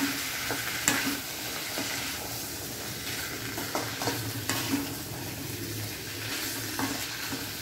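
Boiled black chickpeas frying with onion and tomato in a metal kadai, sizzling steadily as a perforated metal spatula stirs them, with a few sharp clicks of the spatula striking the pan.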